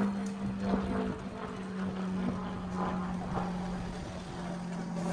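A steady engine hum holding one low, even pitch throughout.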